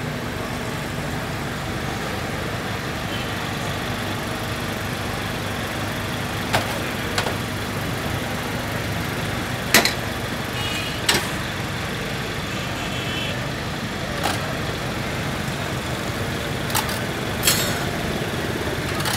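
Steady hum of busy street background noise with a low engine-like drone. Over it come several scattered sharp clicks of steel tongs striking a metal serving tray as the cook handles grilled whole chickens.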